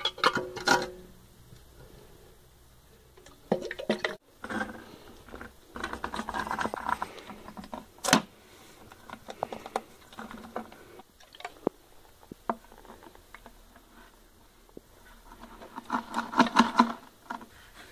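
Hands working wet refractory mix in a bucket mould for a foundry lid: irregular clicks, knocks and wet handling sounds, with a sharper knock about halfway through and a louder run of wet sounds near the end as a cylinder is pushed down into the mix.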